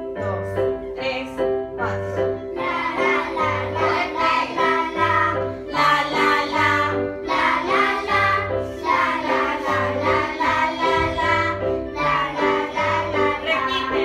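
Group of children singing a children's song loudly in unison, over electronic keyboards that play the melody and a steady repeating bass. The keyboards play alone for the first couple of seconds before the voices come in.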